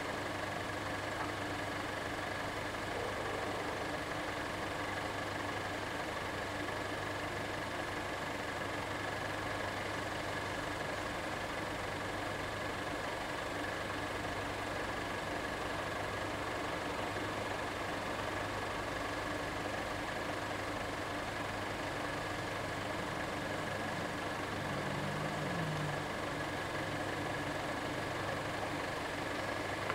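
A steady, unchanging mechanical hum with a constant high whine above it. A vehicle comes close briefly about 25 seconds in.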